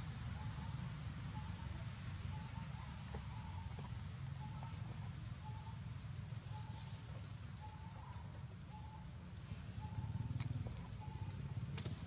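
Outdoor ambience: a steady low rumble under a constant high-pitched drone, with a short mid-pitched note repeating about every two-thirds of a second and two sharp clicks near the end.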